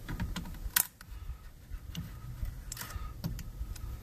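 Hose-clamp pliers clicking and rattling against a metal spring clamp on a small hose in a truck's engine bay. There is a sharp click about a second in and a few lighter ones near the end.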